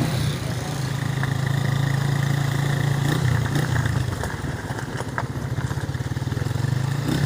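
A vehicle engine running steadily, its note shifting briefly about three seconds in, with a few light rattles over it.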